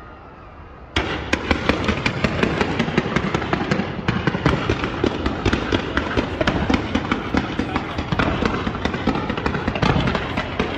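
Fireworks display: after about a second of fading rumble, a sudden, dense run of rapid crackling pops that keeps going without a break.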